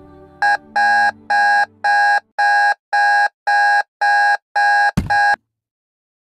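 Digital alarm clock beeping: a run of about ten short high beeps, roughly two a second, cut off suddenly by a thump about five seconds in.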